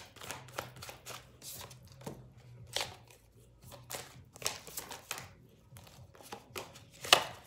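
Deck of tarot cards being shuffled by hand, an uneven run of soft card flicks and rustles, with one sharper snap near the end.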